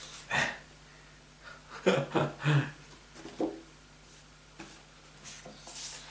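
Large stiff-card art prints handled and slid over one another by hand: a few short rustles and taps, the loudest cluster about two seconds in, and a softer sliding hiss near the end.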